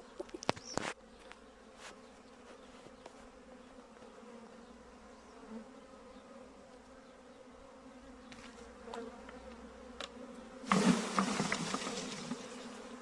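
Honeybee swarm buzzing steadily as it is being taken. A few sharp clicks in the first second, and a louder rustling noise from near the end.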